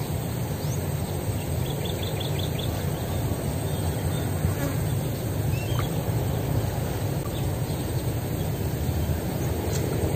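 Steady low outdoor rumble, with a quick run of faint high chirps about two seconds in and a few single chirps later.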